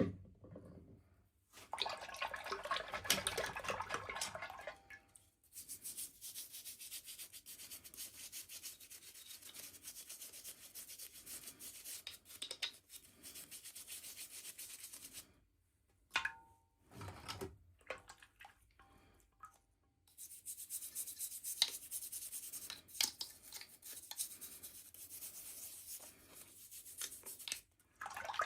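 Toy packaging handled and opened by hand: long stretches of close scratching and crinkling rubs, broken by a few short pauses and separate rustles.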